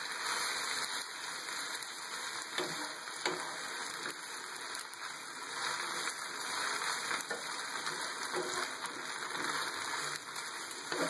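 Rigatoni sizzling in a hot frying pan with pancetta fat and a splash of red wine vinegar, a steady hiss, as it is turned over with a wooden spatula that scrapes and taps against the pan a few times.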